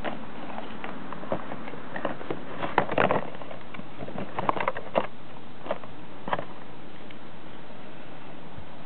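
Scattered light clicks and knocks from a Metal Gaia Memory toy being handled, over a steady hiss. The clicks are briefly busier about three seconds in and again around five seconds.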